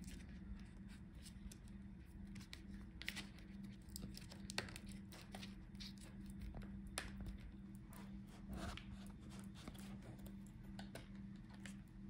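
Faint scratching, crinkling and small clicks of fingers and fingernails working at the Dell Latitude 7450's battery cable connector and the tape over it, while it is being disconnected. A steady low hum runs underneath.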